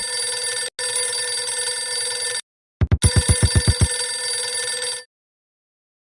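Steady electronic ringing like a telephone ring, several high pure tones together. It drops out for an instant near the start and again about two and a half seconds in. A quick run of about ten low pulses comes as the ringing returns, and it cuts off suddenly about five seconds in.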